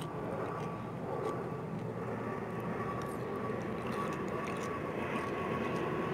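Steady background noise, like a distant aircraft or traffic hum, with a faint steady tone. No distinct loud crunches stand out.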